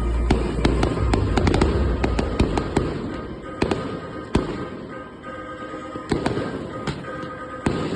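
Fireworks going off: a rapid run of sharp pops and crackles over a low rumble. The rumble dies down after about three seconds, and scattered louder bangs go on.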